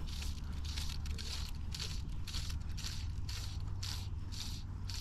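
Rio OutBound Short fly line being stripped in by hand through the rod guides, a short hissing scrape with each pull, about two a second, over a steady low rumble.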